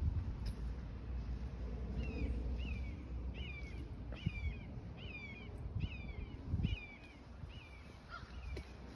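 A bird repeating a clear, downward-slurred call about twice a second, starting about two seconds in, over a low rumble with a few thumps.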